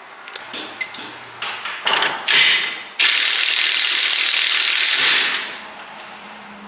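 Cordless impact wrench hammering on the pinion nut of a Jeep JK's Dana 30 front differential: a couple of short blips about two seconds in, then a steady run of about two seconds that trails off. It is running the nut down onto the new crush sleeve to take out the pinion's play before the preload is set.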